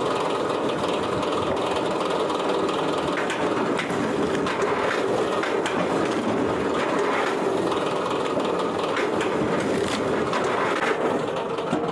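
Wood-processing machinery running steadily, a continuous mechanical din with irregular rattling and knocking throughout.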